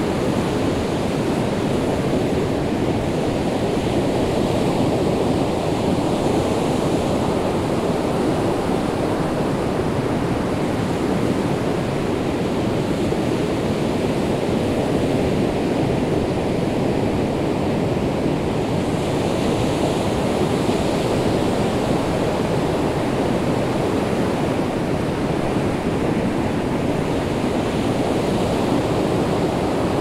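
North Sea surf: a steady rush of waves washing onto the beach, swelling slightly twice, the second time about two-thirds of the way through.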